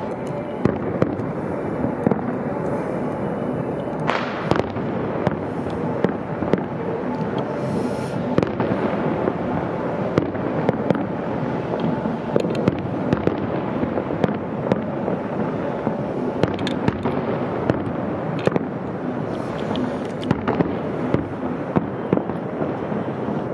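Fireworks display with a dense, unbroken crackle of firecrackers and bursting shells, and frequent sharp bangs standing out above it.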